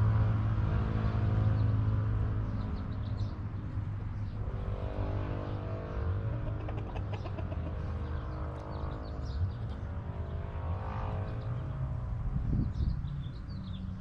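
Small birds chirping and chickens calling over a low, steady rumble like a vehicle engine, which is loudest in the first couple of seconds and then eases off.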